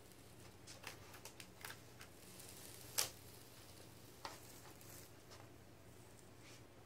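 Adhesive paint stencil being peeled off a painted pinball cabinet: faint crackles and scattered small clicks, with one sharp click about three seconds in.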